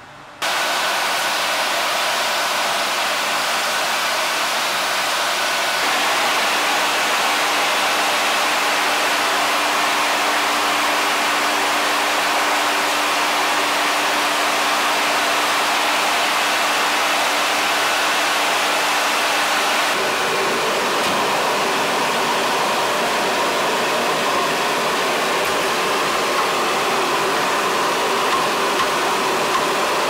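Gas boiler room's burners and fans running: a loud, steady rushing noise that starts abruptly, with a low steady hum through the middle part.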